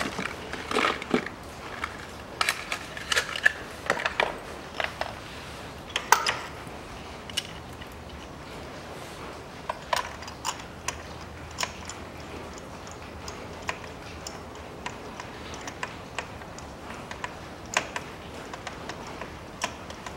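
Irregular light clicks, taps and crinkles of hand work on a spark plug change. A new Denso spark plug is handled out of its cardboard box, and a spark plug socket on a metal extension knocks and clicks in the engine's plug well. The clicks are thicker in the first few seconds and sparser later.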